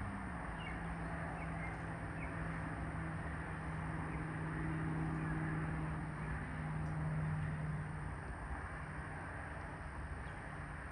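A low, steady engine drone: a hum that dips slightly in pitch near the start, holds for several seconds and then fades, over a constant background hiss.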